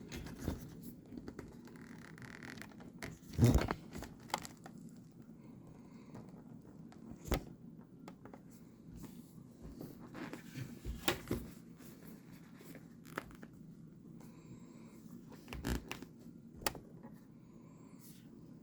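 Brinks padlock being picked: scattered small clicks and scrapes of the pick and tension tool working the lock, with a sharper knock about three and a half seconds in, over a low steady hum.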